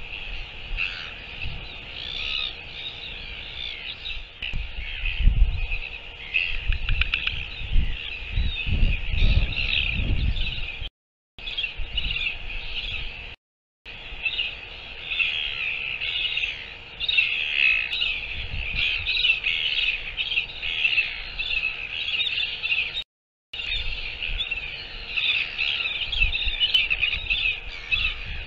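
A dense chorus of small birds chirping continuously, with gusts of wind buffeting the microphone. The sound cuts out briefly three times.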